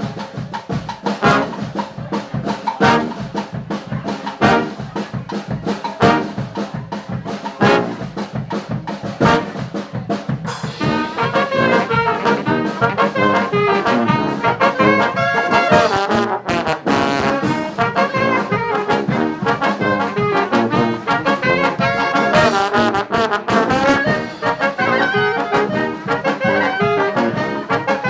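Street brass band playing: a steady drum beat alone for about the first ten seconds, then trumpets, trombones and other horns come in together over the drums.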